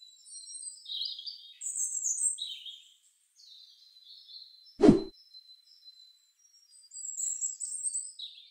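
Birdsong: clusters of high chirps and twitters near the start and again near the end. A single short pop sounds about halfway through.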